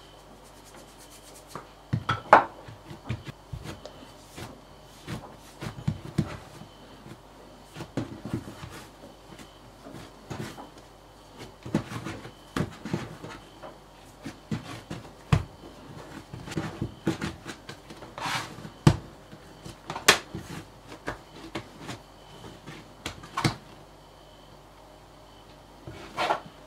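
Hands pressing, patting and folding sourdough bread dough on a worktop: irregular thumps and rubbing, with a few sharper knocks.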